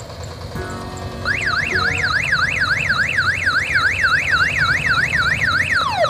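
Mini tourist train's electronic siren switching on about a second in and wailing rapidly up and down, about four times a second, then changing near the end to a faster falling yelp. A diesel engine runs low underneath.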